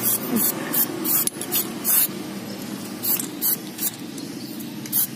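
Aerosol can of black Pilox spray paint hissing in a rapid series of short bursts, about two a second, with a brief pause midway, as paint is sprayed onto a shoe.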